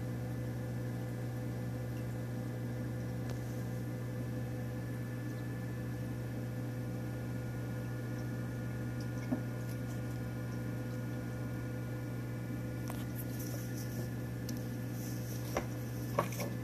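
Steady electrical hum of a running reef aquarium's water pumps and powerheads, with a few faint clicks near the end.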